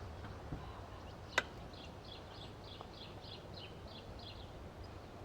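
A songbird calling a quick series of repeated high chirps, about four or five a second, near the start and again through the middle. About a second and a half in comes a single sharp click, the loudest sound.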